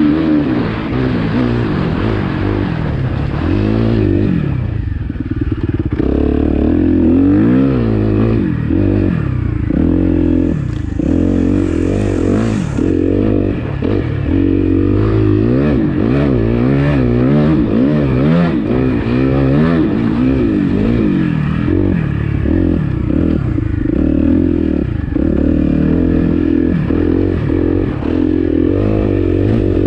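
Dirt bike engine being ridden hard, revving up and down over and over as the throttle is worked, its pitch rising and falling every second or two.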